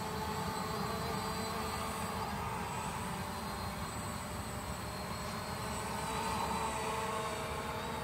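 ZLRC SG906 Pro quadcopter's brushless motors and propellers whining steadily as it flies low, the pitch wavering slightly as it moves.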